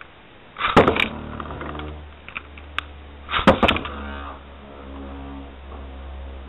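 Metal Fight Beyblade spinning tops launched into a plastic stadium: two loud clattering bursts, about a second in and again about three and a half seconds in, as the tops land and strike. Then a steady whirring hum as the tops spin.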